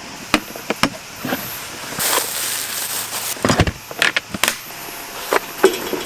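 Light clicks and knocks of camp gear being handled, a wooden table board being set onto its frame, with a louder cluster of knocks about three and a half seconds in. A hiss lasting about a second comes just before it.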